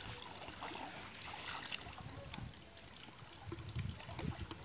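Hands groping and splashing in shallow muddy water, with small trickles and drips as water runs off. Heavier low sloshes come near the end.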